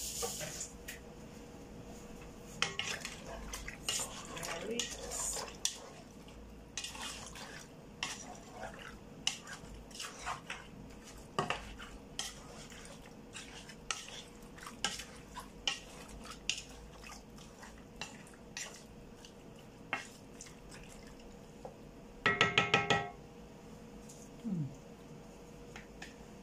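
Wooden spoon stirring meat in a large pot, with scattered knocks and clinks of spoon and cookware. About 22 seconds in comes a louder clatter that rings briefly. A faint steady hum runs underneath.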